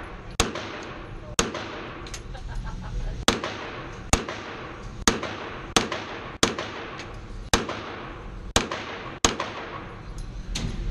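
Pistol fired at an indoor range: about eleven shots, unevenly spaced roughly a second apart, each echoing briefly off the walls, with fainter reports in between.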